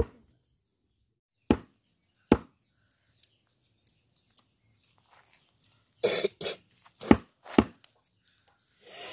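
A large curved knife chopping goat meat on a wooden log block: three sharp chops in the first two and a half seconds. In the second half come a short noisy burst and two more sharp knocks.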